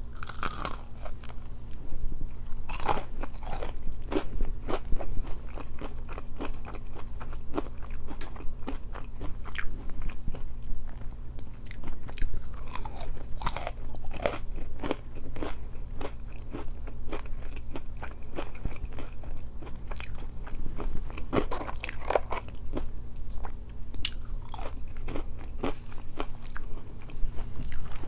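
Close-miked chewing and biting of ketchup-dipped waffle fries and a chicken wrap: crunching with many short, crisp mouth clicks, over a steady low hum.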